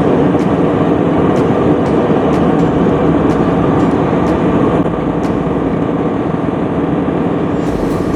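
Airliner cabin noise: a steady, loud rumble with a run of faint, sharp clicks. It drops slightly in level about five seconds in.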